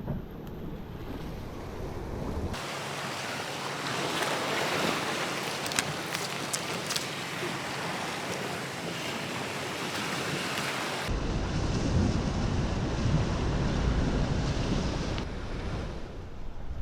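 Sea waves washing and breaking along the shore, with wind buffeting the microphone. The sound changes abruptly twice, about two and a half seconds in and again near eleven seconds.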